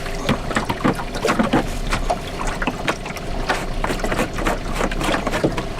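Water splashing and trickling against the hull of a small fishing boat, with many irregular light knocks and splashes.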